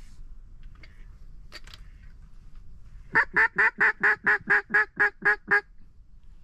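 Duck call imitating a mallard hen: a quick, even run of about eleven loud quacks lasting some two and a half seconds, starting about three seconds in.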